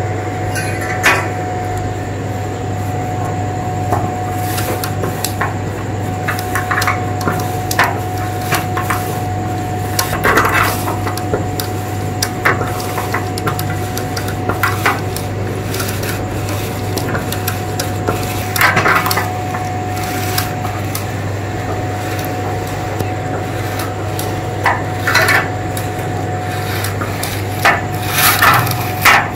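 Stainless-steel push-down spinning hand whisk clattering and scraping against a glass bowl, with irregular clicks, as instant coffee, sugar and hot water are whipped into dalgona coffee foam. A steady hum runs underneath.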